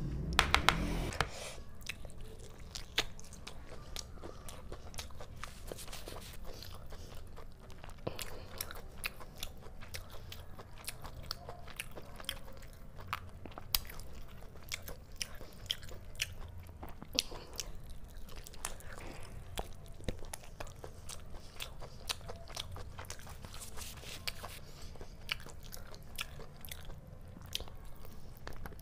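Close-miked eating of chicken leg curry with rice: biting meat off a drumstick and chewing, with many small wet mouth clicks and crunches. A few louder knocks come in the first second or so.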